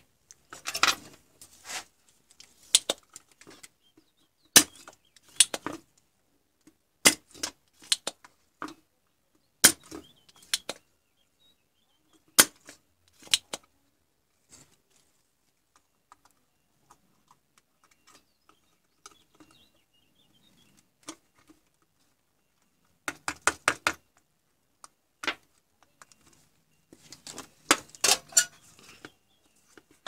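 Sharp clicks and snaps of a spring-loaded desoldering pump being cocked and fired, scattered through with two quick flurries near the end, as a transformer is desoldered from an LCD monitor's power board.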